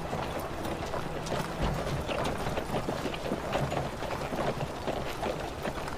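Horses' hooves clip-clopping in an irregular, continuous patter of knocks. Background music fades out in the first second.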